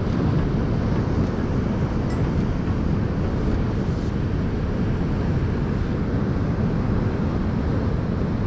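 Steady rumble of wind on the microphone mixed with the wash of surf against shore rocks.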